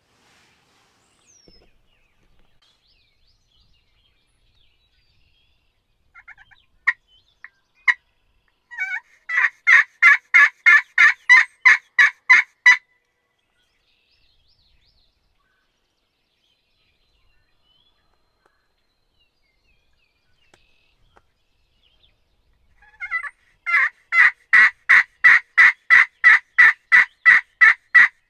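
Turkey call worked by hand in a series of hen yelps: a few short single notes, then a run of about a dozen evenly spaced yelps at about four a second. A second, longer run starts near the end.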